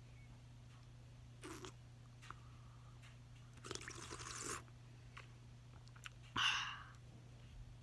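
Short breathy mouth sounds of a boy blowing and sipping at a drink bottle, three in all, the loudest near the end, over a steady low hum.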